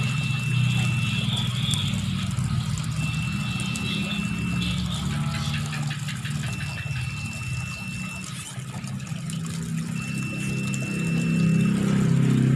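An engine runs steadily with a low hum, growing louder near the end. Tap water pours into a tub underneath it.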